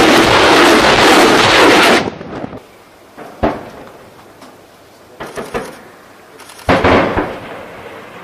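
A loud, dense rushing noise cuts off abruptly about two seconds in. It is followed by sharp weapon-fire bangs, each with a short rumbling tail: a single bang, then a quick cluster of three or four, then a louder pair near the end.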